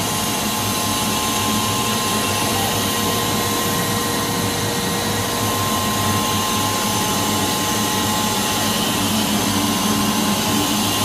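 Steady machine drone of a running PP hollow-sheet extrusion line: motors, pumps and blowers, an even rushing noise with a constant whine.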